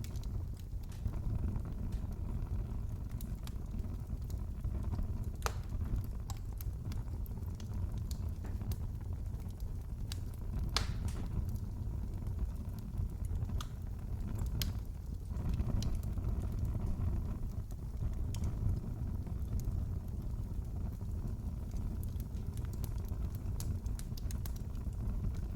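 Wood fire crackling in a fireplace: a steady low rumble of the flames with scattered sharp snaps and pops, a few of them louder.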